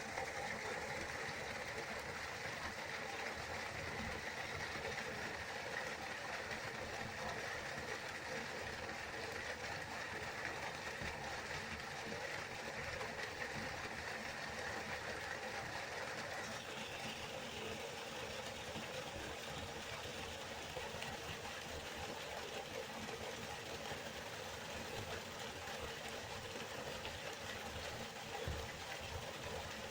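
River water flowing in a steady, continuous rush, its tone shifting slightly about halfway through.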